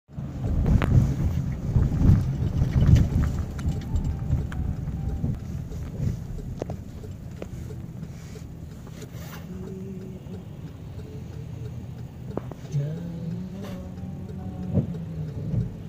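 Low rumble of a car's cabin on a wet road, loud and uneven for the first few seconds, then settling to a quieter steady hum.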